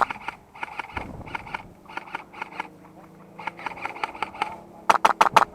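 Airsoft guns firing rapid semi-automatic strings: quieter shots from farther off come in several bursts, about five or six a second, then a close gun fires a loud quick string near the end.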